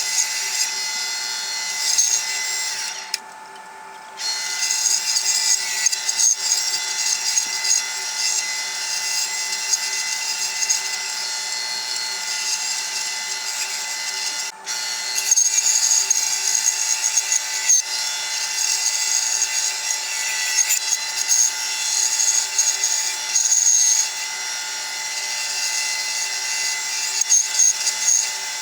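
Bandsaw running and cutting through wood, its blade and motor giving a steady whine that swells and eases as the blade bites. The sound drops away briefly about three seconds in.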